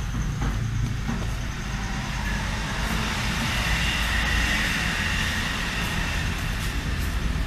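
A single-phase electric motor with start and run capacitors runs steadily, driving a water pump. It makes a continuous low hum, and a higher hiss swells in the middle.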